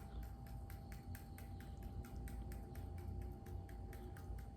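Fingertips tapping lightly and rapidly on the body during EFT tapping, an even patter of about five taps a second, over a faint steady tone and low hum.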